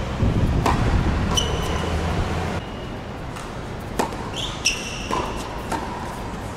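Tennis racket striking the ball on a serve about four seconds in, followed by a few more sharp ball hits and short high squeaks of court shoes on the hard court. A low background rumble stops suddenly about two and a half seconds in.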